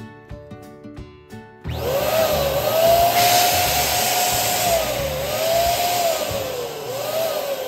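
Electric balloon pump starting up about two seconds in and running steadily as it inflates a latex balloon. Its motor whine wavers up and down in pitch over a hiss of air.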